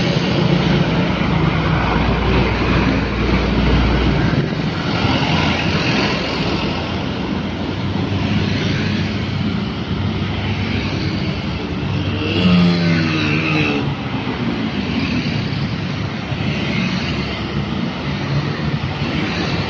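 Busy road traffic passing close by. A heavy diesel dump truck goes past with a deep engine rumble in the first four seconds. After that comes a stream of motorcycles and cars, and one passes about twelve seconds in with its engine pitch falling as it goes by.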